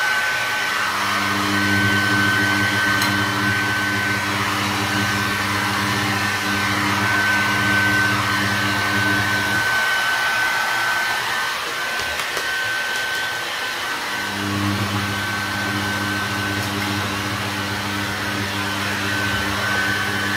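Handheld hair dryer running steadily, a rush of air with a constant high tone over it. Its low hum drops away for a few seconds around the middle and then comes back.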